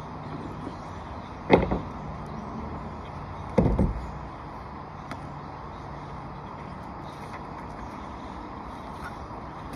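Two short thumps about two seconds apart over a steady background hiss; the first is sharper, the second lower and longer.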